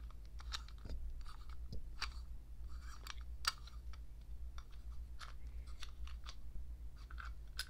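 Irregular small clicks and scrapes of a tool twisting in the base of a full-metal airsoft M712 Broomhandle CO2 magazine as its bottom screw is undone, with one sharper click about three and a half seconds in.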